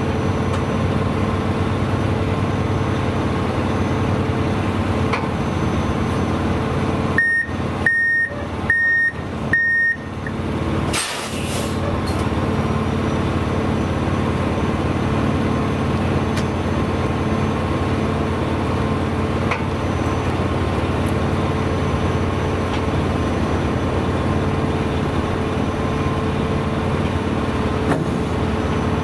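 Heavy diesel truck engine idling steadily. About seven seconds in, a back-up alarm gives four short, high beeps a little under a second apart. A brief burst of air hiss follows from the truck's air system.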